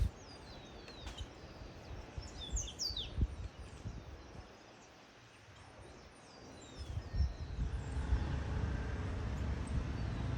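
Wild birds chirping: many short, high, downward-sliding calls, mostly in the first few seconds with a few more later. They sound over a steady outdoor background noise that grows louder from about seven seconds in.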